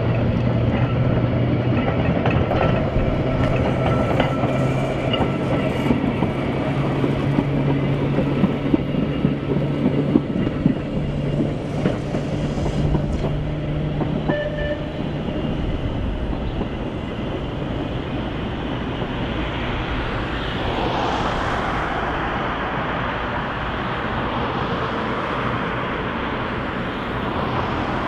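Heritage Manx Electric Railway electric tram running on its track, with a steady low hum and clicks from the wheels over rail joints. About twenty seconds in, road traffic passes close by with a swelling rush of tyre noise.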